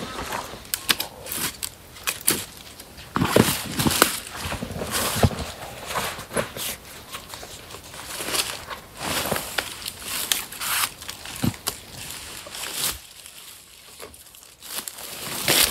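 Dry leaves and twigs crunching and crackling underfoot on a forest floor, in irregular snaps and rustles that drop off briefly near the end.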